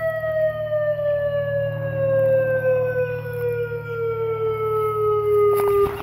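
Synthesized Federal Signal Modulator / UltraVoice-style electronic warning siren sounding one tone that slides slowly and steadily down in pitch over a low hum, then cuts off abruptly near the end.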